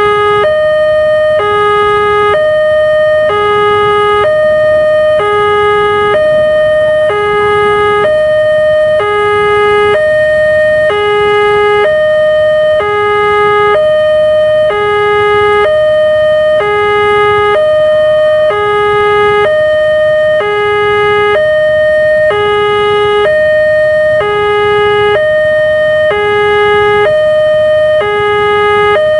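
Railway level-crossing alarm ringing its warning: an electronic chime that alternates a lower and a higher tone, each about a second long, repeating steadily. It sounds while the barrier is down and the red lamp is lit, warning that a train is approaching.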